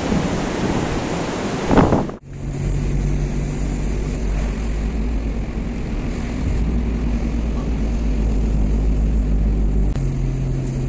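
Strong wind buffeting the microphone for about two seconds, ending in an abrupt cut. Then the steady low drone of a car driving, engine and road noise heard from inside the cabin, its pitch shifting slightly twice.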